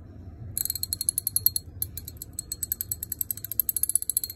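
Pittsburgh 3/8-inch drive ratchet wrench being worked back and forth by hand, its pawl clicking rapidly over the gear in uneven runs, starting about half a second in. The coarse clicks come from a ratchet with very big teeth.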